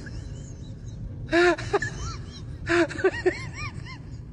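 A toddler making short wordless vocal sounds that rise and fall in pitch: one about a second and a half in, then a quick string of them around three seconds in.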